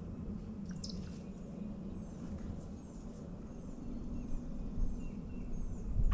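A small songbird calling a quick series of short, high, falling chirps, about two a second, over a steady low rumble that grows louder near the end.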